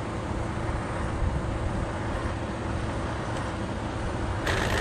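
Steady low outdoor rumble and hiss. Near the end comes a sudden loud burst as the twin-motor Arrma Felony RC car launches off the line on asphalt.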